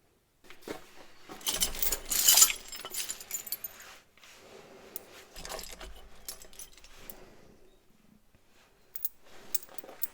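Small metal objects jangling and rattling as they are handled, loudest about two seconds in, with a weaker spell of rattling and a few clicks later.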